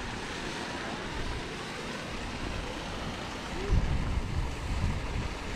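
Wind blowing across the microphone over a steady wash of pouring, lapping water. From a little past halfway the wind buffets the microphone harder in low rumbling gusts.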